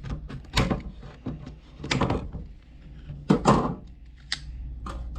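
Packaging of a screwdriver set being handled and worked open: a series of separate knocks and scraping clatters, the loudest a little over three seconds in.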